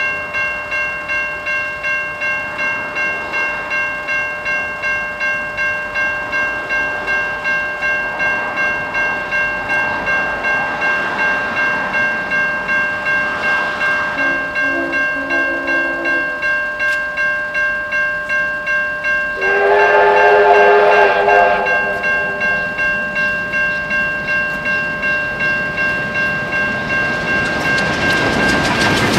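Level crossing electronic bells (Safetran Type 3 e-bells) ringing in a steady pulse of about two strikes a second. About halfway through comes a short pair of low whistle toots. A couple of seconds later a steam locomotive's whistle gives a louder blast of about two seconds, the loudest sound here. Near the end the noise of the approaching steam train builds.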